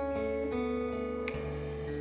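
Acoustic guitar playing an instrumental passage of a slow jazz ballad, with ringing chords; a new chord with a lower bass note is struck about two-thirds of the way through.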